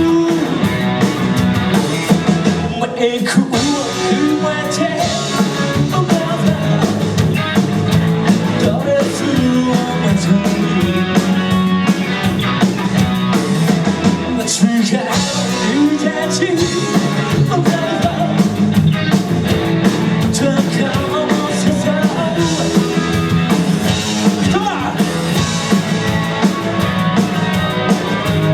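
A live rock band playing a fast J-rock song, with a male vocalist singing over electric guitar, bass and drum kit.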